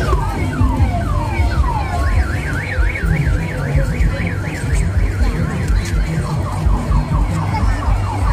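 Electronic alarm siren cycling through its tones: a rapid string of falling chirps, then a fast up-and-down warble for about four seconds, then falling chirps again, over a heavy low rumble.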